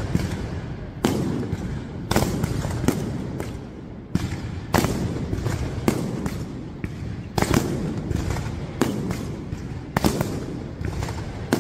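Fireworks going off in quick succession: rockets shooting up and bursting, with sharp bangs about one to two a second over a continuous low rumble of launches and bursts.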